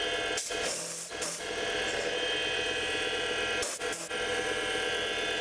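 A 7x16 mini lathe runs steadily with a resin blank spinning in the chuck while a parting tool is jogged into it by hand, 10 thou at a time. A few short scraping bursts come from the cut, about half a second in, around one second and near four seconds.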